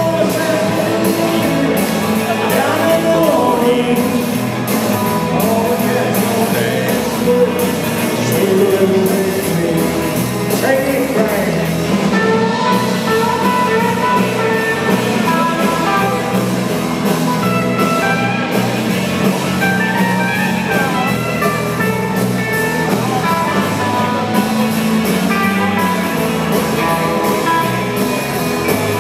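Live rock band playing electric guitars and a drum kit at a steady beat, with singing over it.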